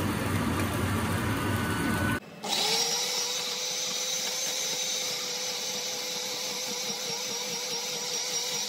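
Water poured into a glass blender jar over soaked guajillo chiles. Then, about two seconds in, the blender motor starts, quickly spins up to speed and runs steadily, grinding the chiles into sauce.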